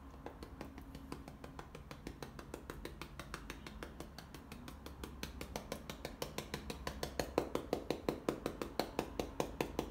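Stiff bristle brush dabbing acrylic paint onto canvas in quick repeated taps, about five or six a second, which grow louder from about halfway through.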